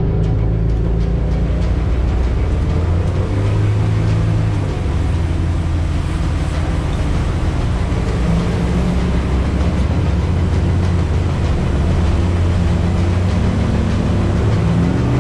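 Cabin cruiser motorboat running at speed: a loud, steady low engine drone with a rushing hiss of wind and water over it.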